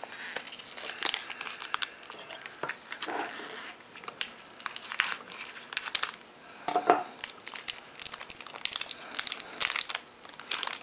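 Crinkled metallic foil wrapping crackling and rustling as it is pulled apart and peeled off by hand, in quick irregular crackles.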